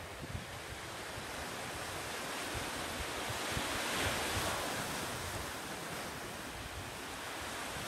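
Small waves washing onto the shore, one swelling to a peak about four seconds in. Wind buffets the microphone in low thumps near the start.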